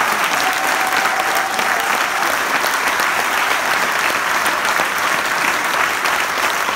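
Audience applauding in a hall: loud, dense, steady clapping that breaks out suddenly just before and keeps going without letting up.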